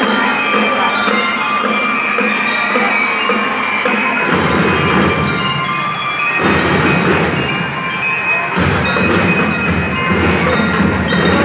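Drum and lyre band playing: bell lyres and mallet percussion ring out a melody over the drum section. Heavy bass drumming comes in about four seconds in and returns in stretches.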